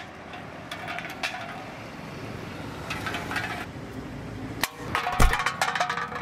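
An empty can knocking and clattering on brick paving stones in scattered clinks, loudest with a heavy knock about five seconds in, over a steady outdoor hiss.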